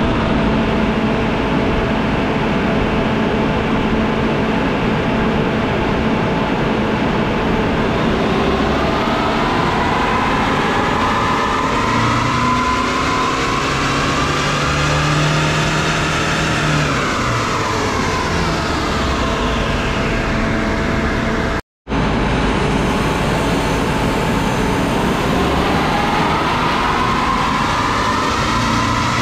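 Nissan Navara 2.3-litre twin-turbo diesel running hard on a chassis dyno's rollers. Its pitch climbs steadily through a stock baseline pull, then falls away, and after a cut it climbs again in a pull after a Stage 1 ECU remap.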